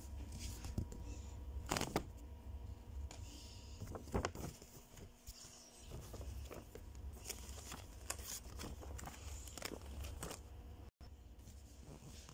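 Paper bus timetable leaflets being handled and swapped: scattered short rustles and crackles of paper, about a dozen, over a low steady rumble.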